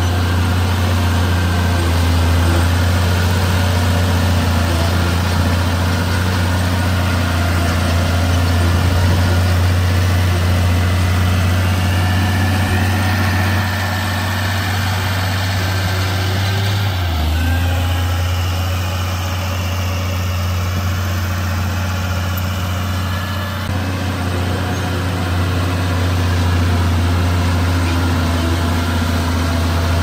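Heavy construction machine's diesel engine running steadily. Its pitch dips briefly a little past the middle, then recovers.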